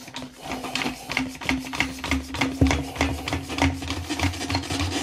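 Quick-grip bar clamps being squeezed tight onto a tyre's sidewall, a quick irregular run of clicks and clunks as the trigger handle is pumped, over a steady low hum.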